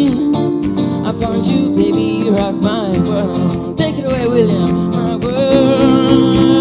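Live band playing a song: guitars over a steady chordal backing, with a wavering melody line that bends in pitch.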